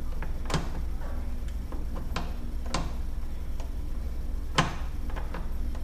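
Irregular light clicks and taps as a brass shift rod coupler on a Yamaha 25 hp outboard's lower unit is worked by hand to start it onto the shift rod, with one louder click about four and a half seconds in. A steady low hum runs underneath.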